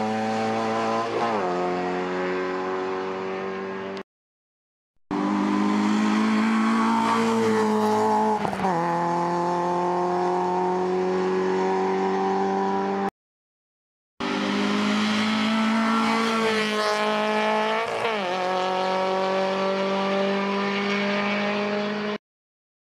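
Small hatchback hill-climb race cars, a Citroën Saxo and then a Peugeot 106, accelerating hard uphill. Their engines rev high, and the pitch drops sharply at each gear change. There are three separate passes, with two brief cuts to silence between them.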